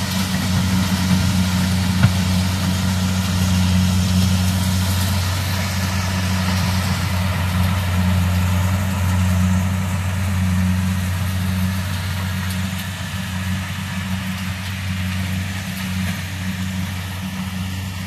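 Kubota combine harvester's diesel engine running steadily as it harvests corn, a constant low drone with a hiss of machinery noise above it.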